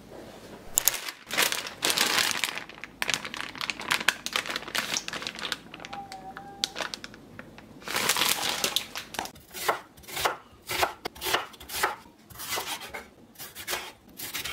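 Paper-and-plastic food packaging crinkling and rustling as it is handled. From about ten seconds in, a knife cuts red bell pepper on a wooden cutting board in quick, even strokes, roughly two to three a second.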